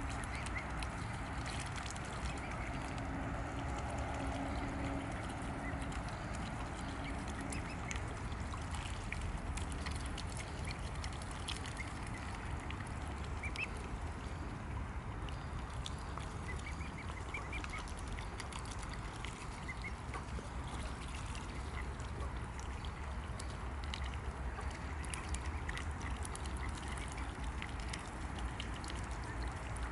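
Mute swans and grey cygnets feeding on floating dandelion leaves, their bills dabbling at the water with small splashes, over a steady low rumble.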